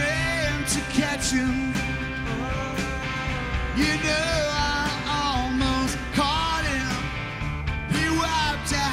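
Live rock band playing: a man singing lead over electric guitars, bass and drums, with drum hits and cymbals throughout.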